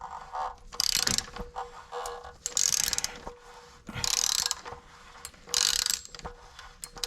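Socket ratchet wrench on an extension turning the cartridge oil filter housing cap of a Toyota Highlander V6: about four bursts of rapid clicking from the pawl, one every second and a half or so as the handle is swung back and forth.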